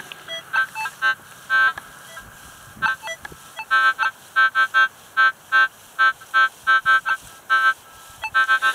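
Minelab CTX 3030 metal detector giving short, high target-tone beeps over and over, in irregular clusters of several beeps a second, with a few lower-pitched beeps in the first few seconds.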